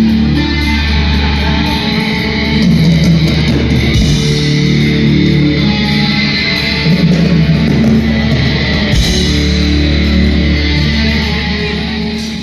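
Loud rock music from a live band, with guitar and a steady, heavy bass line.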